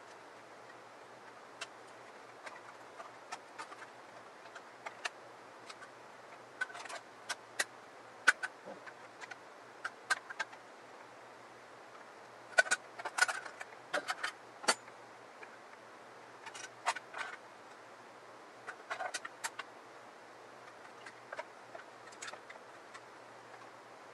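Handling noise from a hunting rifle and its composite stock: scattered light metallic clicks and taps in small bunches as the barreled action is fitted back into the stock, the sharpest about a third of the way in and again around the middle.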